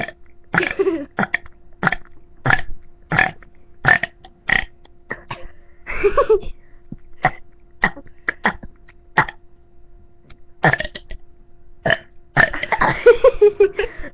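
A boy burping over and over, mostly in short, abrupt burps about once or twice a second. Longer burps come about six seconds in and again near the end, the last one drawn out for over a second.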